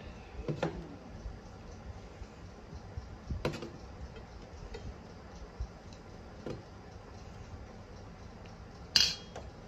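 Steel spoon clinking against a stainless steel curry bowl and plates as curry is served, a few scattered clinks and ticks, the sharpest and loudest near the end.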